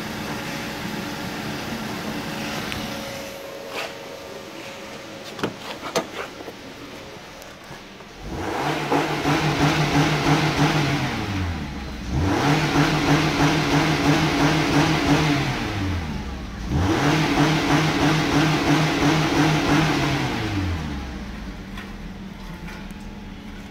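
2010 Mazda CX-7's 2.5-litre DOHC 16-valve four-cylinder engine idling, then revved three times about eight seconds in. Each rev is held steady for three to four seconds before dropping back, and the engine settles to idle near the end.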